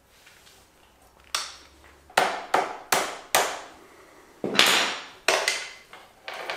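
Metal clanks and clinks from a motorcycle drive chain being pulled loose off its sprockets and swingarm so it can be shortened. After a quiet first second comes a string of about nine sharp, irregular knocks.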